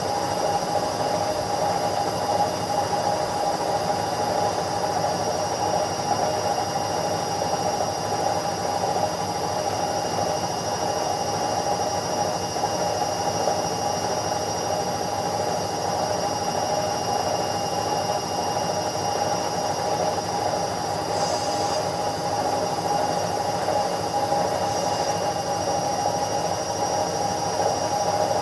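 Indesit washing machine spinning at top speed in its spin cycle: a steady motor whine with a few high held tones over an even rushing noise.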